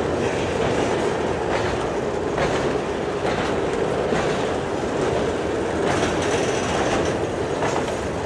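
Loaded covered hopper grain cars rolling slowly past, a steady rumble of wheels on rail with a clack every second or so as wheels cross rail joints.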